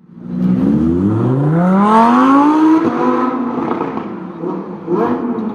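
Lamborghini Huracán EVO Spyder's 5.2-litre V10 accelerating hard. The revs climb steadily for about two and a half seconds, then drop sharply, and the engine note carries on lower and fades as the car goes away.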